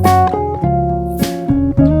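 Background music: plucked guitar melody with bass and a cymbal crash at the start and again about a second in.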